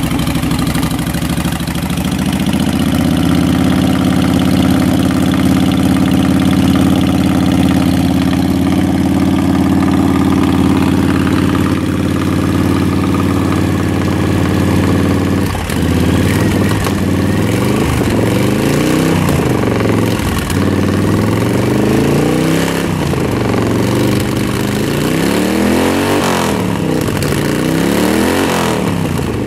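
2007 Honda VTX 1300's V-twin engine running through Road Burner Street Pro aftermarket pipes, warming up just after a cold start: steady idle that steps up slightly about two seconds in, then from about halfway a series of throttle blips, the revs rising and falling back roughly every two seconds before settling to idle near the end.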